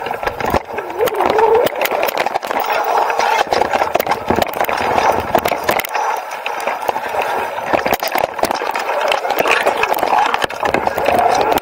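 Electric mountain bike with a Bafang motor ridden over a rough trail, heard from a handlebar-mounted camera: a motor whine that wavers in pitch under frequent clicks and knocks as the bike rattles over bumps.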